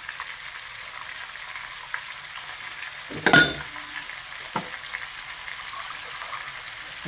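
Chicken with grated carrot and tomato frying in a pan, a steady sizzle. About three seconds in there is a sharp clatter, and a small knock follows a second later.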